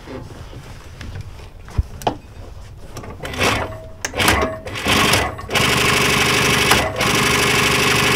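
Industrial sewing machine stitching denim: a few short runs, then a steady run from about five and a half seconds in, with a brief stop near seven seconds.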